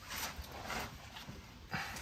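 A few soft rustling, scuffing sounds, about three, of a work-gloved hand reaching up past the exhaust pipe to grip a hot spin-on oil filter under a pickup truck.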